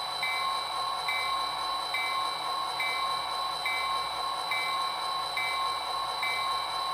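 Athearn Genesis HO-scale GP40-2 model locomotive's Tsunami 2 sound decoder playing a diesel locomotive bell through its factory speaker. The bell rings steadily, a little faster than once a second.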